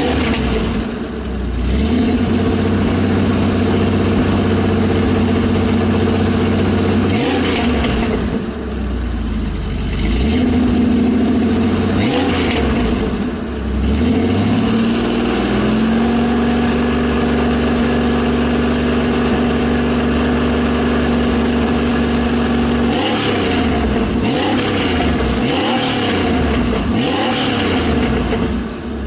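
Car exhaust fitted with a baffle in the stock outlet and inner silencers in the dual tailpipes, the engine idling and revved several times, held at a raised speed for a few seconds midway.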